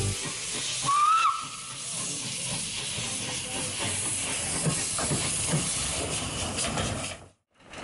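Steam locomotive hissing as it vents steam, with a brief high squeal about a second in. The sound drops out briefly near the end.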